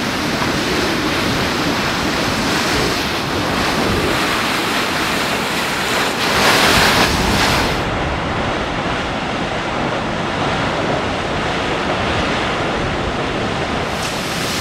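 Burst underground water pipe shooting a tall jet of water: a loud, steady rush of spraying and splashing water, swelling briefly about six seconds in.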